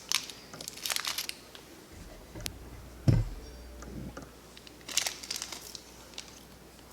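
Packaging being handled and unwrapped, crinkling in bursts at the start and again about five seconds in, with a sharp click and then a dull thump a little after three seconds.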